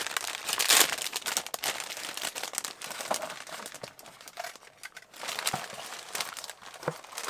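Packaging being unwrapped and handled: irregular crinkling and rustling. It is loudest just under a second in and eases off around four to five seconds before picking up again.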